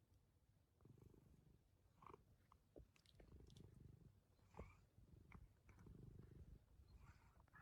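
Very faint domestic cat purring, coming and going, with a few soft clicks.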